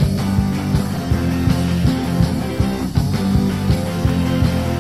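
Instrumental passage of a 1970s punk rock song: the band plays on with electric guitar over a steady drum beat, the vocals having dropped out.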